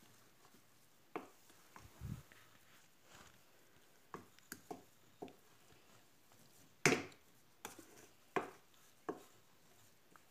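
Wooden spoon knocking and scraping against a stainless steel pot while stirring thick, crumbly halva: about ten irregular taps, the loudest about seven seconds in.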